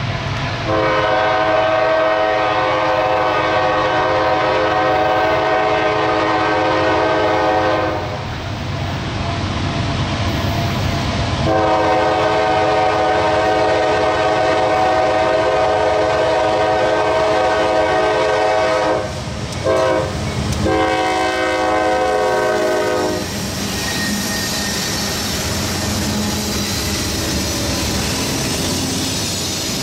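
Norfolk Southern freight locomotive's horn sounding the grade-crossing signal, long, long, short, long, as the train approaches. After the last blast the locomotive and its covered hopper cars pass close by with steady wheel-on-rail noise.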